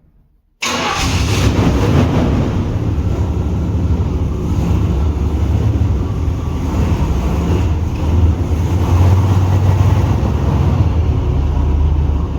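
Pontiac Turbo Trans Am's turbocharged V8 engine running, a steady low rumble that cuts in abruptly about half a second in.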